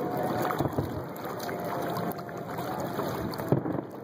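Kayak sitting on open water: a steady wash of water noise with a few light knocks, about half a second in and again near the end.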